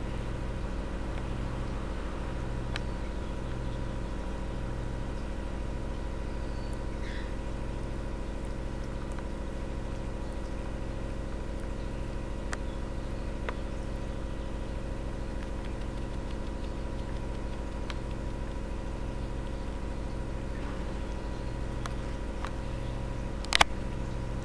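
Domestic cat purring close up: a steady low rumble that swells and fades about once a second. A single sharp click near the end.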